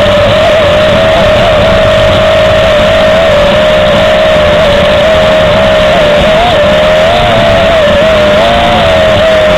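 Small drone's electric motors and propellers whining loudly at one steady pitch that wavers slightly up and down as it climbs and holds, with a rushing noise of air over the microphone.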